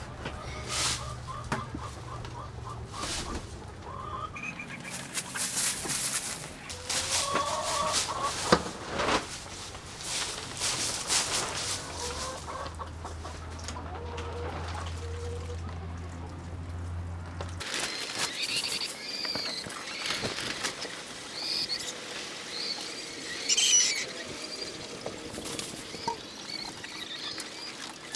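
Rhode Island hens clucking and calling in short scattered notes, with one louder call near the end. In the first half there are knocks and rustling from plastic buckets being handled.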